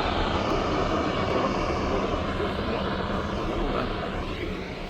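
A steady rushing noise with a low hum under it, slowly fading away.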